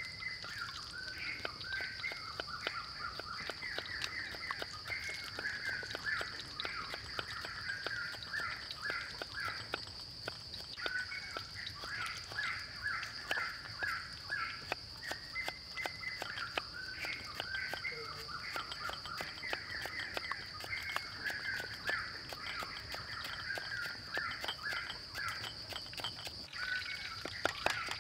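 Birds chirping and calling continuously over a steady high-pitched whine, with light knife taps on a wooden chopping block that turn into louder cleaver chops near the end.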